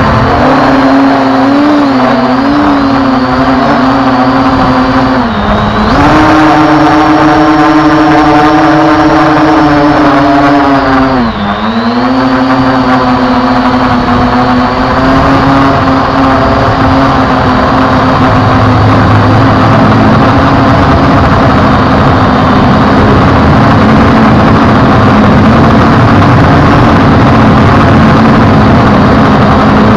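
MJX Bugs GPS quadcopter's motors and propellers in flight, a loud steady whine with several stacked tones over a rushing noise. The pitch dips and recovers twice, about five and eleven seconds in, as the motors slow and speed up again.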